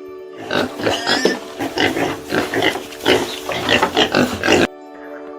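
Pig making a rapid run of harsh grunts and squeals that cuts off abruptly near the end.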